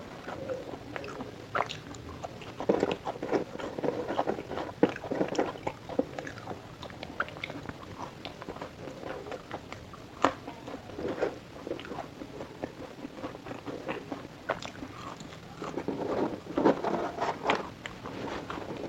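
Close-miked chewing and biting of fried food, french fries, sausage and fried chicken: irregular crunches and clicks, busiest about three to six seconds in and again near the end.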